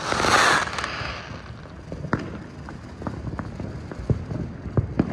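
Fireworks going off: a loud crackling, hissing burst in the first second, then scattered sharp bangs and pops.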